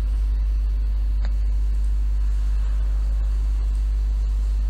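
Steady low electrical hum with a faint hiss, picked up by the recording microphone. There is a faint click about a second in.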